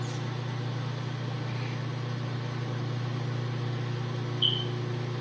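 Microwave oven running, a steady low hum while it defrosts a frozen Gatorade bottle, with a brief sharp high click about four and a half seconds in.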